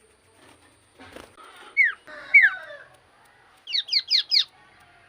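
Common iora singing: two separate sharp falling whistled notes, then a quick run of four short falling notes about a second and a half later.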